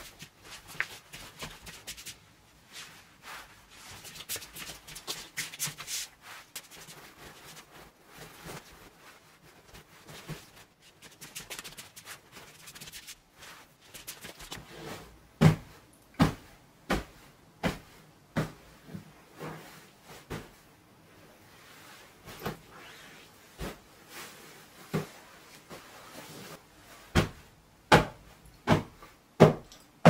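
Bedding rustling as a quilted mattress pad and cover are spread and smoothed over a bed. About halfway, pillows are patted by hand into shape: a run of soft thumps about one a second, heaviest near the end.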